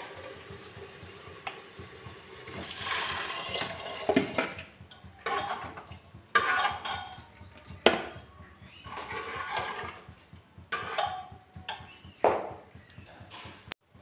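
Boiled rajma with its cooking water poured into a pressure cooker over the fried masala, a watery splashing. Then a run of short scrapes and clinks in the pot, about one every second and a half.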